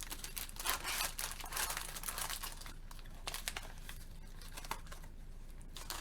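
Plastic snack packaging crinkling and tearing as a packet is handled and opened. The crackling is dense for the first two and a half seconds, then thins to scattered crackles.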